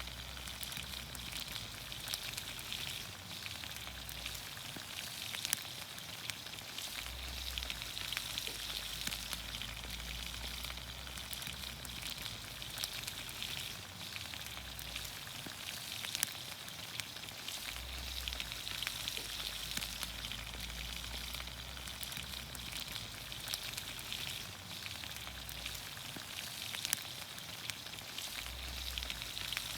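Vegetables sizzling steadily in olive oil in a pan over a campfire, a constant hiss with fine crackling and occasional sharp pops.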